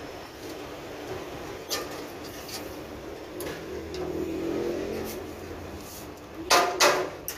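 Scattered clicks and knocks from hands working at a diesel generator's radiator, with two loud sharp knocks about a second apart near the end. An engine hums briefly in the middle, rising and falling in pitch.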